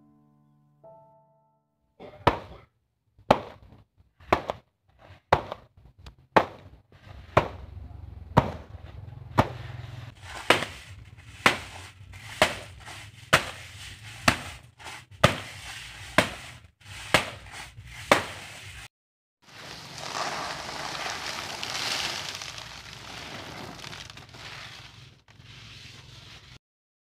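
Dried corn cobs in a woven plastic sack being beaten to shell them, knocking the kernels off the cobs: a run of sharp thuds, about one or two a second. After a short pause comes a steady rattling hiss for several seconds as the loose kernels and cobs are poured into a bamboo basket.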